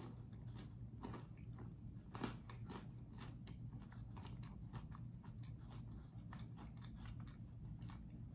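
Close-up chewing and crunching of garlic bread that has gone hard, with many small crisp crunches and a sharper bite about two seconds in.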